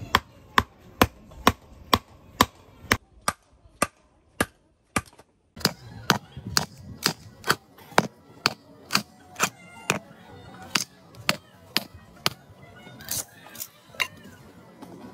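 Wood splitting for kindling: a wooden baton strikes the wood again and again in sharp knocks, about two a second, with a short break and a few lighter knocks about a third of the way in.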